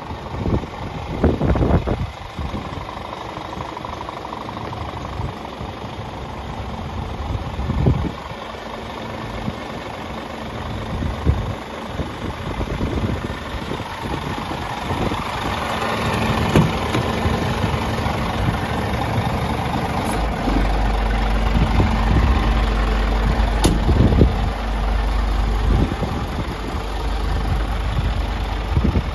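Scania G410 tractor unit's 13-litre inline-six diesel engine idling steadily, with scattered short knocks and irregular low rumbles over it.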